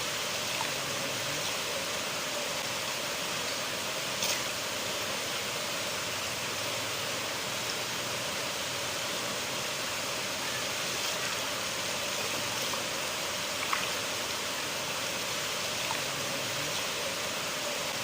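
River water flowing in a steady, even rush, with two brief sharper sounds about four and fourteen seconds in.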